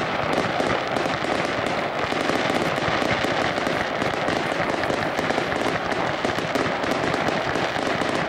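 Aerial fireworks going off in a rapid, continuous barrage of bangs and crackles as shells burst one after another.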